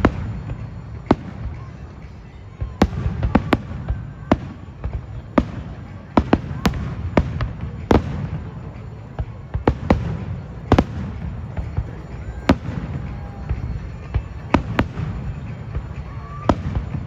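Fireworks going off: a string of sharp bangs at irregular intervals, often one or two a second, over a continuous low rumble.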